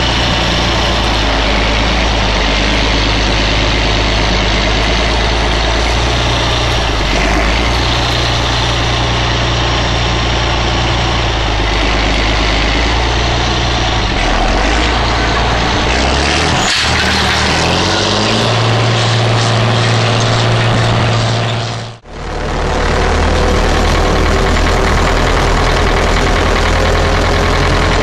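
Rába Steiger articulated tractor's diesel engine running steadily under load while it pulls a seedbed cultivator across a field. After a sudden break about two-thirds of the way through, a red MTZ tractor's diesel engine is heard from inside its cab on the road, its note climbing slightly near the end.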